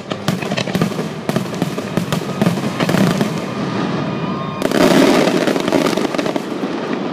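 Fireworks going off in quick succession: sharp bangs and crackling from aerial shell bursts. A dense, louder barrage of bursts comes about two-thirds of the way in.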